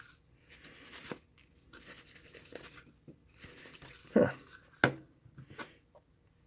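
A cloth damp with isopropyl alcohol rubbed over the aluminum top plate of a small soldering hot plate: soft scrubbing, on and off, to clean off flux residue. There are two sharp knocks about four and five seconds in.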